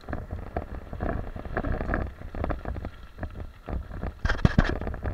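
Mountain bike descending a rough gravel and dirt trail: tyres crunching over loose stones and the bike rattling over bumps, with a steady rumble of wind on the microphone. A burst of louder, sharper knocks comes about four and a half seconds in.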